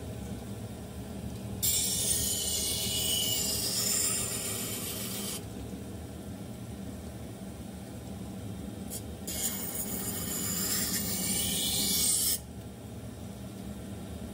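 A deba knife's blade is ground against an electric water-fed rotary whetstone in two rasping passes. The first starts about a second and a half in and lasts about four seconds. The second starts about nine seconds in and cuts off sharply near twelve seconds. Under both runs the steady hum of the wheel's motor.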